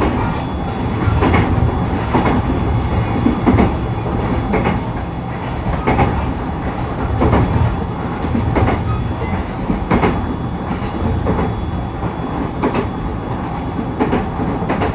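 E129 series electric train running, with the wheels clacking over rail joints about every second and a half over a steady rumble. The joint knocks ring loudly through the motored bogie on the Yahiko Line's somewhat uneven track.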